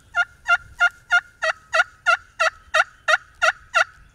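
Wild turkey yelping: a long, even series of about fourteen loud yelps, roughly three a second, starting softer and growing louder.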